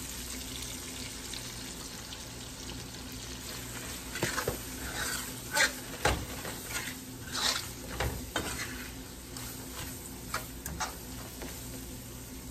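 Onions and mushrooms sizzling steadily in frying grease in a skillet while flour is stirred in to start a gravy, a wire skimmer scraping and tapping against the pan in a run of short strokes from about four to eleven seconds in.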